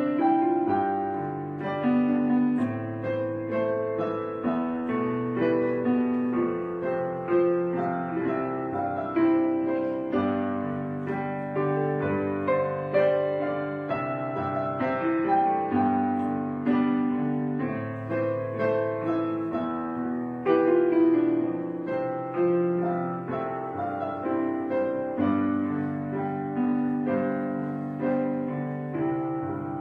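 Background music: a gentle solo piano piece, notes struck and left to ring in an even, unhurried flow.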